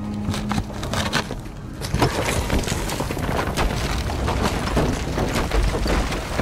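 Rock and debris crashing and crumbling, with low booms: a few sharp knocks at first, then from about two seconds in a dense crackling clatter of many impacts over a deep rumble.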